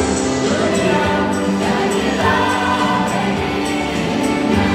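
Mixed church choir of women's and men's voices singing a hymn in harmony through microphones, the chords changing about once a second. A light, fairly regular ticking runs behind the voices.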